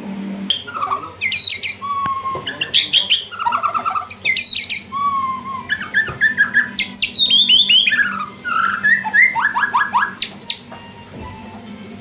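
White-rumped shama (murai batu) in full song: a long run of loud, varied whistled phrases with rapid trills, slurred glides and quick down-sweeping notes, stopping about ten and a half seconds in.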